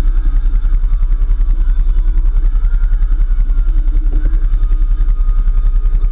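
Off-road vehicle's engine running under way, heard as a loud, rapid, even low pulsing with steady noise over it.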